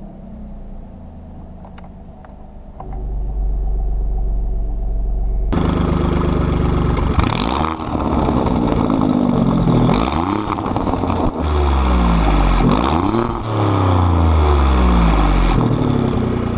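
Alfa Romeo Giulia Quadrifoglio's 2.9-litre twin-turbo V6 idling at first, then about five seconds in turning much louder and revved about five times, each rev rising and falling in pitch. It runs on factory software in race mode, where the exhaust flaps are fully open.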